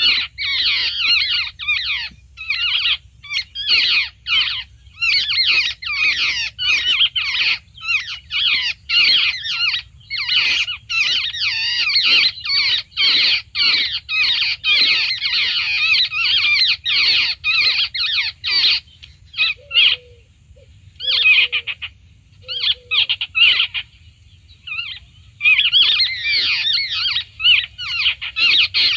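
Charkhi chidiya (babblers) chattering: harsh, rapid, squeaky notes in dense bouts, with a couple of short breaks in the second half.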